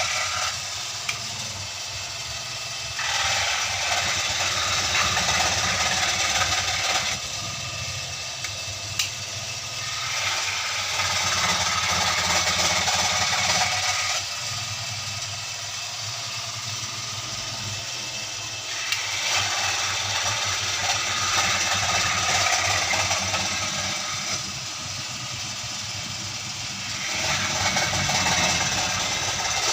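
Motor-driven bird-cage-making machine running, its steady hum broken by louder working stretches of a few seconds each, several times over.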